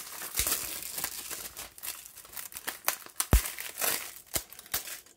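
Clear plastic shrink wrap crinkling and tearing as it is peeled off a Blu-ray case, in irregular crackles, with one sharp click a little over three seconds in.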